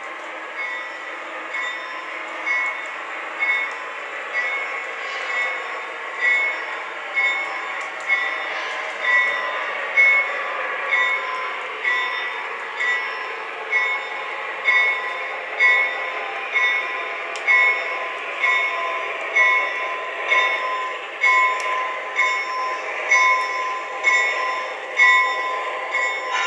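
Electric Railroad sound package in an Atlas O-scale ALCO RS-1 diesel model, playing a steady diesel engine running sound with the locomotive bell ringing a little more than once a second.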